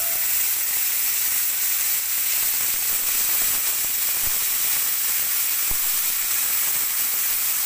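Onion sauce sizzling steadily as it is ladled over a ribeye steak on a very hot sizzling plate, boiling and steaming on the metal.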